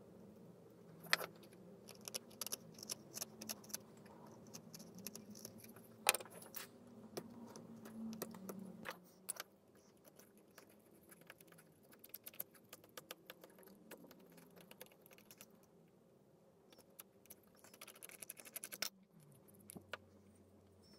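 A small carving blade cutting and scraping a groove into a wooden tool handle: a run of small clicks and scratches as chips come away, with two sharper clicks about one and six seconds in.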